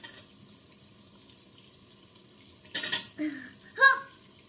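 Bathroom tap running steadily. About three seconds in come three short vocal sounds from a child, the last the loudest.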